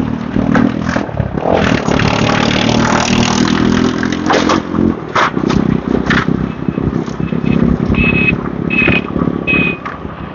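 Motorbike ride through city traffic: the bike's engine runs steadily under wind and road noise, with other motorbikes passing. In the second half a short high beep sounds about six times, roughly every half second.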